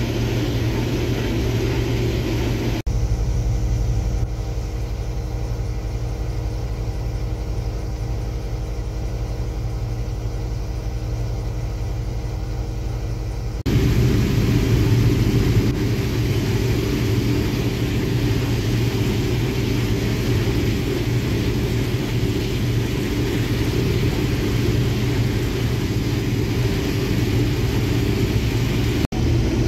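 Combine harvester running while picking corn, heard as a steady engine and machinery drone inside the cab. The sound shifts abruptly about 3 s in and again about 14 s in.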